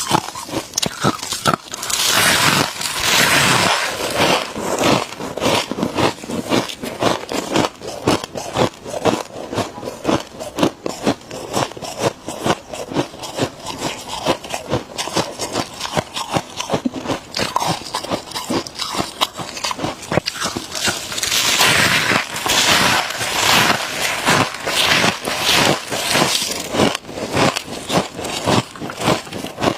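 Close-up crunching and chewing of freezer frost in the mouth, a steady run of sharp crunches a few times a second, with louder, harsher stretches of biting or scraping twice.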